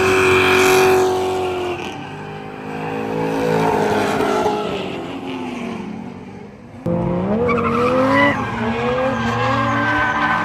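Drift car engine revving hard, its pitch rising and falling as the throttle is worked, with tires squealing and skidding. Near the middle the engine note drops away almost to nothing, then jumps back up sharply about seven seconds in.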